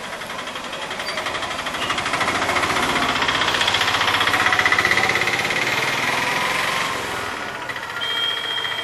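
A small engine running close by with a fast, even pulsing beat, swelling in the middle and easing off toward the end. A brief high-pitched tone sounds near the end.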